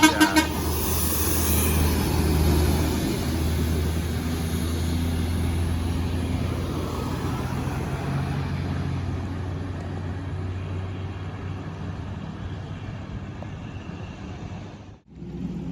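Large intercity bus engine running with a low, steady drone, loudest about two seconds in and then slowly fading as the bus moves away. The sound cuts off sharply near the end.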